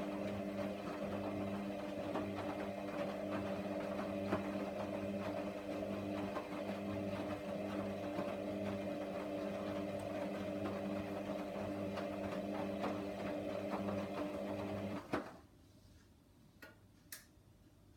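Hoover washer dryer running with a steady motor hum. The hum stops abruptly with a click about fifteen seconds in, followed by two faint ticks.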